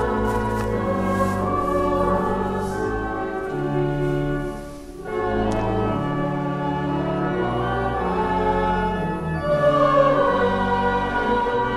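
A choir singing slow, long-held chords, with a short break in the singing about five seconds in before it resumes.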